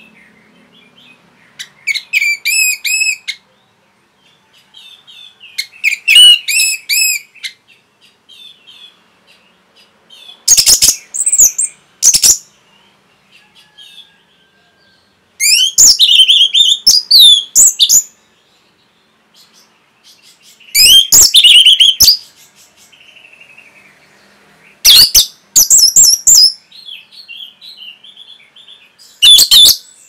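Orange-headed thrush singing loudly. It gives seven rich, rapidly varied song phrases of one to two seconds, about four to five seconds apart, with soft twittering in between.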